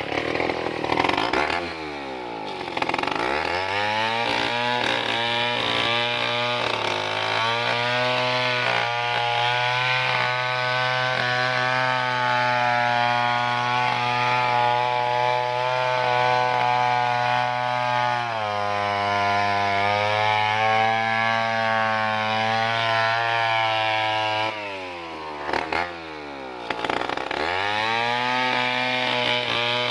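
Stihl 070 two-stroke chainsaw sawing a log lengthwise into planks, held at high revs under load through long cuts. The engine drops toward idle twice, about two seconds in and near the end, then revs back up into the cut.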